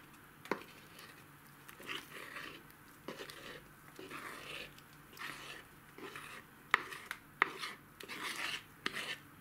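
A spoon scraping thick cake batter out of a wooden bowl into a metal loaf pan: repeated soft scrapes, with a few sharp clicks of the utensil against the bowl.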